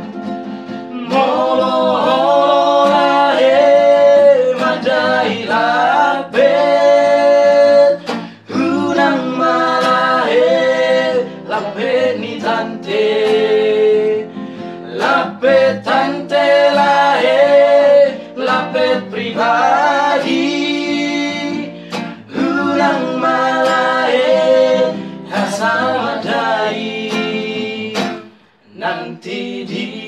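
Several young male voices singing a Batak-language song together, accompanied by a nylon-string classical guitar. The singing drops out briefly near the end.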